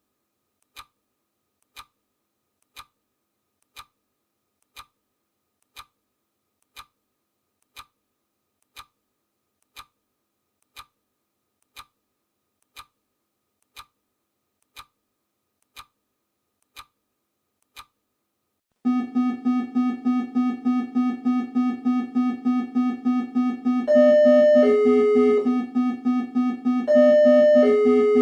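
Clock ticking sound effect, one crisp tick each second, which stops about 18 seconds in as a loud electronic alarm starts. The alarm is a rapidly pulsing tone, about three pulses a second, joined about five seconds later by a short repeating synth-keyboard melody.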